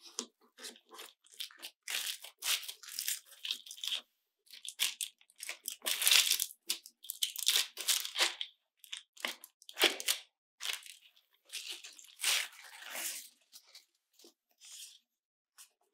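Baking paper crinkling and rustling in short, irregular bursts as hands handle it while pressing and lifting pastry layers.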